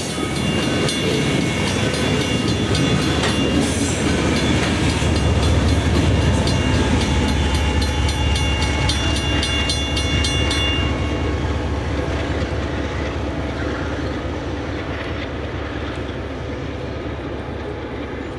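Freight train of covered grain hopper cars rolling past, its wheels clicking rhythmically over the rail joints, with a diesel locomotive's deep engine rumble swelling through the middle. The clicking stops about eleven seconds in, and the rumble fades as the train draws away.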